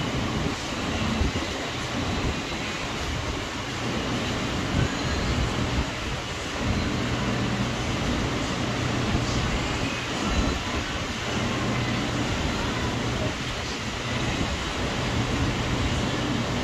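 Wind blowing across the microphone over the wash of surf breaking on the beach below: a steady noise with a low rumble that swells and eases every few seconds.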